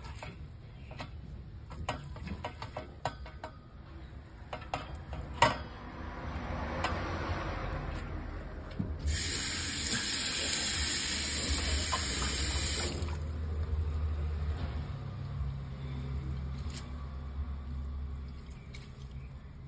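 Water running and splashing into a stainless steel sink as hot soaking water is drained from noodles in a metal steamer pot. There are light clinks of the pot and one sharp knock about five seconds in. Midway a hard flow of water starts and stops abruptly after about four seconds.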